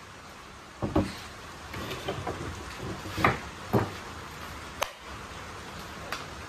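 A wooden board being handled on a wooden pallet: several short knocks and clicks at irregular intervals.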